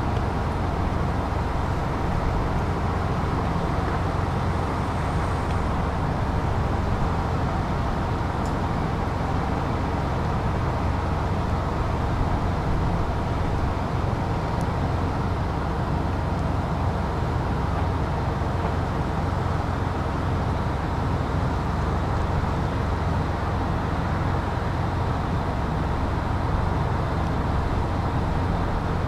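Excavator's diesel engine running steadily at a constant speed: a continuous low rumble that does not change.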